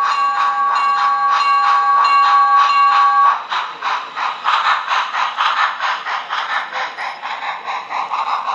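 HO-scale 2-8-2 Mikado model steam locomotive's sound system blowing a steady whistle over a rhythmic chuff of about four beats a second. The whistle cuts off about three seconds in, and the rhythmic chuffing and clatter carry on as the train's cars roll past.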